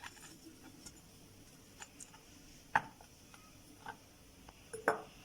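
A few light knocks and clicks, about one a second, the loudest two near three and five seconds in: salt-packed lemons being pushed into a jar.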